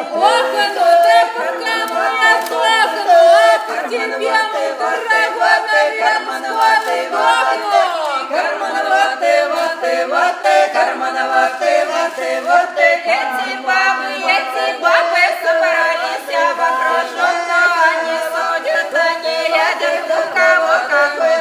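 Russian folk song sung a cappella by a small group of women's voices, several voices blended, with long held and bending notes.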